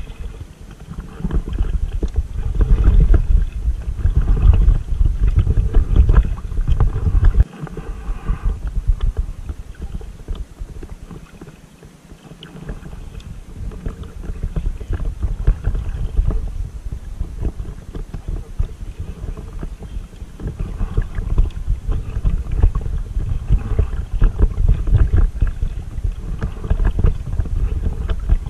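Water splashing and dripping from a double-bladed paddle's strokes as an inflatable kayak is paddled, with uneven wind rumble on the microphone, heaviest in the first several seconds and again in the last third.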